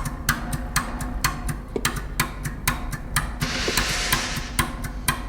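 Intro of a song: a steady percussive clicking beat, about four clicks a second, with a brief hissing swell a little after the middle.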